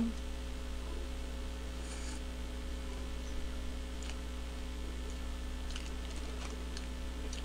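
Steady electrical mains hum from a boosted microphone, with a few faint clicks of chewing on a hamburger.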